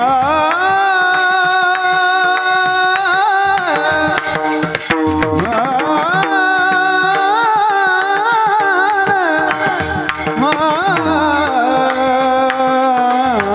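Marathi devotional kirtan singing: a voice holding long, ornamented notes in two long phrases over pakhawaj drum strokes.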